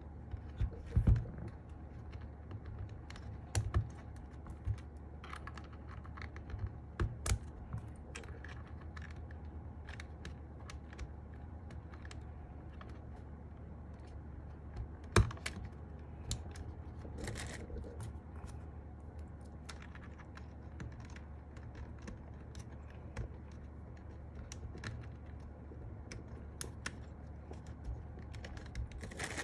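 Irregular plastic clicks and taps from a mechanical keyboard and its parts being handled and fitted, a few sharper clicks standing out among lighter ones, over a faint steady low hum.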